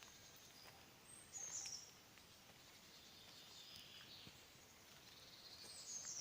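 Faint birdsong in quiet woodland: short high chirps about a second and a half in and again near the end, with a soft trill in between.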